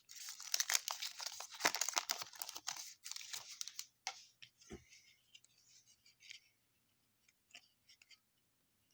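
Crinkly wrapper of a trading-card pack being torn open and crumpled, then fading to a few light rustles and clicks of card handling.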